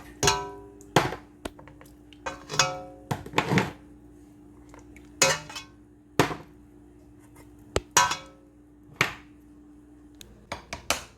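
Metal food cans clanking against a metal cooking pot as they are lifted out of the water they were steamed in: about a dozen sharp, uneven knocks, some with a short metallic ring.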